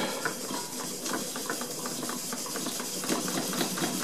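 Stuart live-steam model engines running off a small boiler plant: a quick, regular beat of clicks and steam exhaust, several a second, over a steady hiss of steam.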